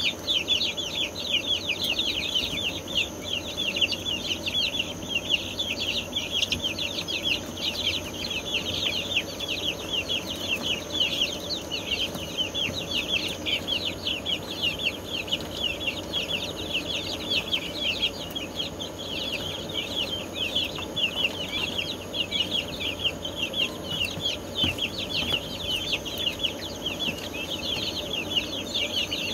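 A brooder full of young chicks peeping nonstop, many short high cheeps overlapping into a continuous chorus.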